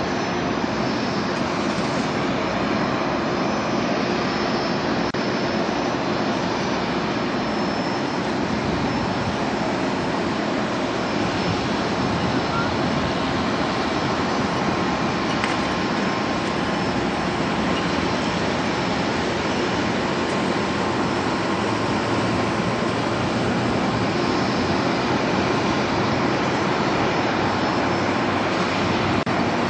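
Twin rear-mounted turbofan engines of a regional jet at takeoff power, a steady rushing jet noise as the plane lifts off and climbs away.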